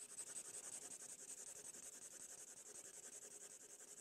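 A faint, steady scratching sound with a fast, even flutter.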